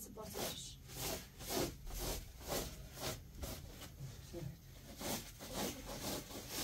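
Rhythmic scraping strokes, about two to three a second, with a short pause about four seconds in.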